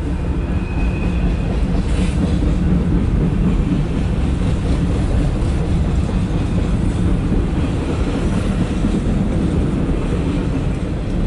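CSX freight train rolling past a grade crossing, its cars' wheels making a steady low rumble on the rails, heard from inside a car.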